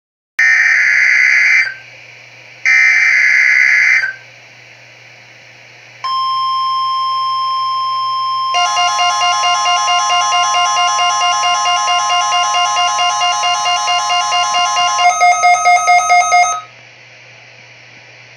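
Required weekly test alert on a Midland WR-120EZ weather radio: two screechy bursts of digital alert-header data about a second each, then the steady warning alarm tone of NOAA Weather Radio. A warbling beeping alert joins the tone about eight seconds in, pulses faster near the end, and stops about sixteen and a half seconds in.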